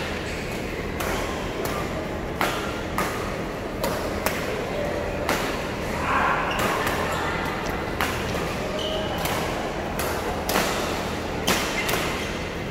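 Badminton rackets striking a shuttlecock in a fast rally, sharp hits coming about every half second to second and a half, echoing in a large sports hall.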